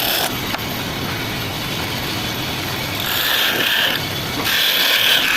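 Wood lathe running with a tool scraping the spinning wood in passes. It is a steady noisy hiss that grows brighter and louder about three seconds in and again near the end.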